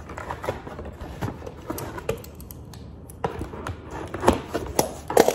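A cardboard box being opened by hand: the flaps and packaging rustle and click, then scissors cut at the box's tape with a few sharp snips near the end.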